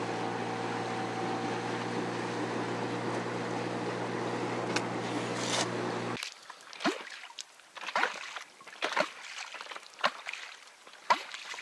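Outboard motor running steadily as the inflatable boat moves over the water. About six seconds in it cuts off abruptly, and small waves lap and slap against the inflatable boat in irregular splashes.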